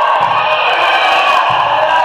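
Crowd at a volleyball match cheering and shouting, many voices at once, with a couple of dull thuds.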